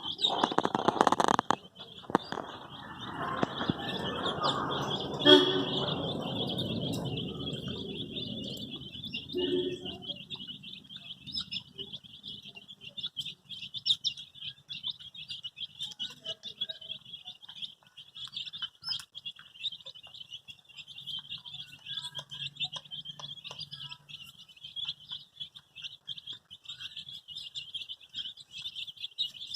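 A flock of baby chicks peeping continuously in a dense, high-pitched chorus. For roughly the first ten seconds a louder noise runs beneath the peeping, with a sharp knock about five seconds in.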